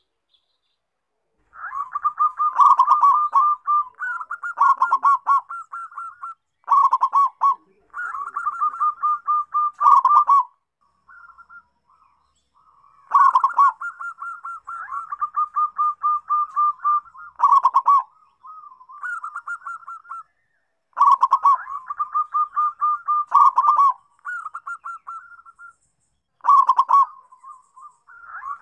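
Zebra dove (perkutut) song: repeated phrases of rapid, staccato cooing notes, each phrase lasting a couple of seconds, with short breaks between them. The song starts about a second and a half in.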